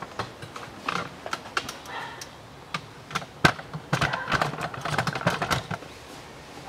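Irregular light clicks and knocks of metal tools and parts being handled at a car's brake caliper, with one sharp click about three and a half seconds in and a dense run of quick ticks from about four to five and a half seconds.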